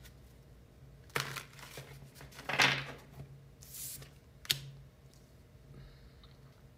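Tarot cards being handled and shuffled: a few soft swishes of card stock and a sharp snap about halfway through.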